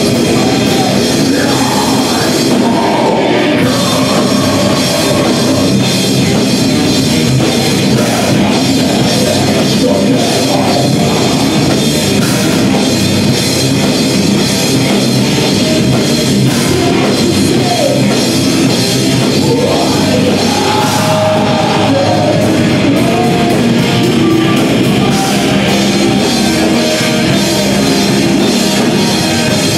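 Death grindcore band playing live: heavily distorted electric guitar and drum kit, loud and steady, with harsh vocals at times.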